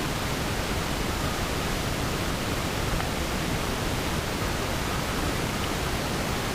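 A steady, even rushing hiss with no distinct knocks or tones.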